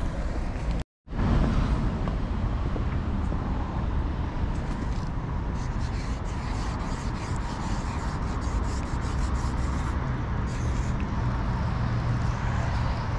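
Street background noise: a steady low rumble of traffic, with faint scratchy rubbing from a paint marker being drawn across a metal utility box through the middle. The sound cuts out completely for a moment about a second in.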